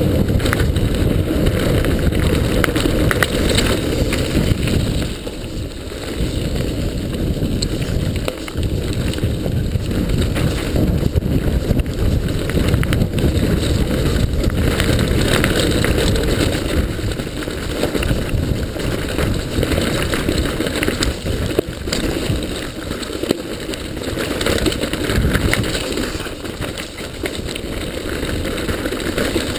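Mountain bike riding fast down a rough dirt trail: a continuous rumble of tyres and suspension over the ground, with frequent rattles and knocks from the bike.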